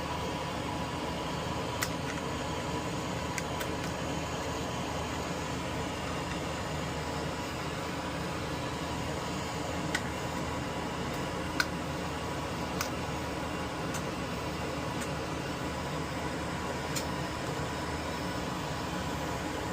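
Steady fan-like whirring, with a faint steady hum and about six short, faint clicks spread through it.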